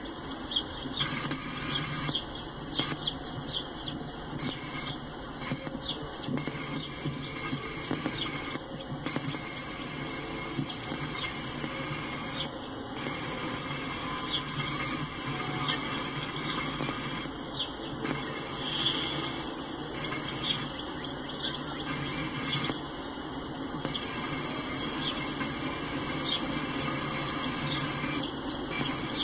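Freight train of tank cars rolling past: a steady noise of steel wheels on rail, with scattered short high-pitched squeaks and clicks from the wheels and couplings.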